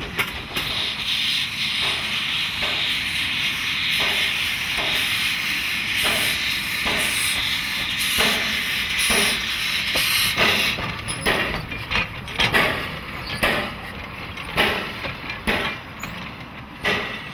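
Andrew Barclay-built steam tank locomotive letting off steam in a loud, steady hiss. About ten seconds in the hiss dies down and gives way to a run of sharp metallic knocks about once a second.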